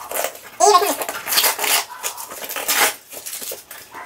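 Cardboard shipping box being pried open by hand, with tape and cardboard flaps scraping and tearing in several rough bursts. A short vocal sound comes in under a second in.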